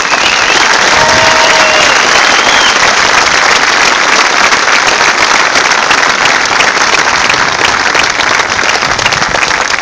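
Large outdoor crowd applauding steadily, dense clapping throughout.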